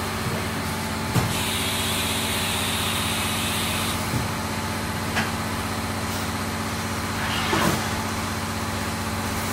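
A machine running steadily with an even, engine-like hum. A hiss starts about a second and a half in and lasts a couple of seconds, and a few light clicks come over the top.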